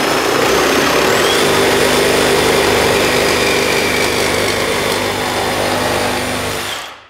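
Cordless reciprocating saw cutting through a wooden block held in a vise. It runs continuously with a motor whine that rises in pitch about a second in, then cuts off near the end as the cut finishes.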